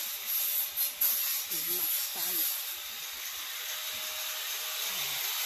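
Steady high hiss, with a few faint, brief vocal sounds about two seconds in and again near the end.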